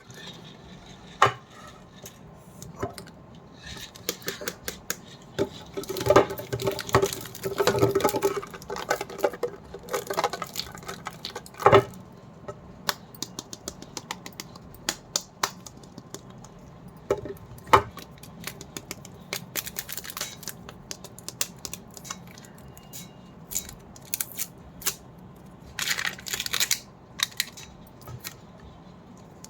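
Candy packaging and sweets being handled: scattered sharp clicks and taps of plastic, with bursts of crinkling wrapper, densest a quarter of the way in and again near the end.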